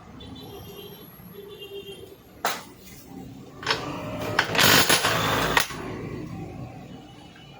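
Metal parts of a diesel injection pump clinking and knocking as they are handled during disassembly: a few sharp knocks, then a louder, noisier stretch of about a second near the middle.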